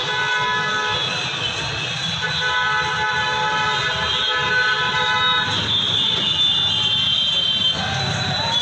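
Vehicle horns honking in long held blasts through the first five seconds or so, then a higher-pitched horn tone, over steady street traffic noise.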